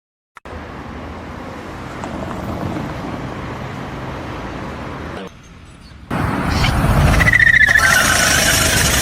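Engine noise from a motor vehicle or machine, cutting in and out abruptly. It is louder in the second half, with a brief high squeal that falls slightly in pitch about seven seconds in.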